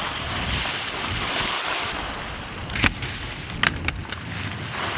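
Wind rushing over the microphone and skis hissing over snow while skiing. There is a sharp knock near the middle and two more about a second later.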